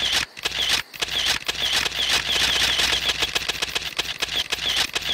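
Rainforest ambience: a dense chorus of rapid, repeated high chirps and clicking calls over a steady low hum.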